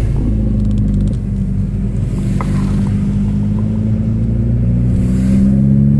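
Volkswagen GTI MkV's turbocharged 2.0-litre four-cylinder engine, tuned and fitted with a cold air intake, running under way as heard inside the cabin; its pitch climbs a little near the end as the car accelerates.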